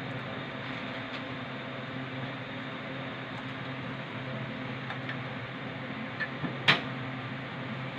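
Garlic sizzling steadily in hot corn oil in a pan, over a low steady hum. A utensil clicks against the pan a few times near the end, the last click the loudest.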